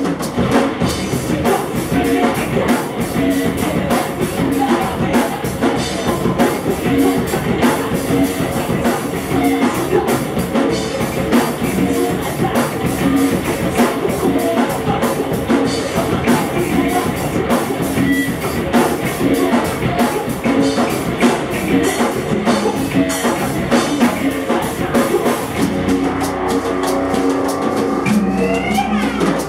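Rock band playing live: distorted electric guitar, bass guitar, drum kit and congas, with a singer on the microphone. A sound glides upward in pitch near the end.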